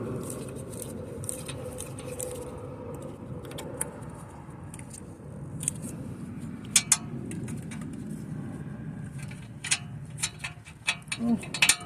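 Scattered light metallic clinks and taps of hand tools on brake hardware, over a steady low background hum. The clinks come mostly in the second half.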